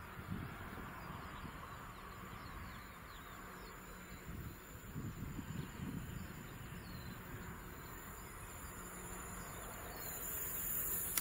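Outdoor ambience of birds chirping and a steady high insect whine over a faint low rumble from a distant Class 60 diesel locomotive hauling a freight train. The rumble swells about half a second in and again around the middle, and a louder high hiss comes in near the end.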